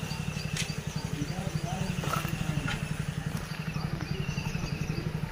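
An engine idling steadily with a fast, even low pulse, with faint voices and birds chirping in the background.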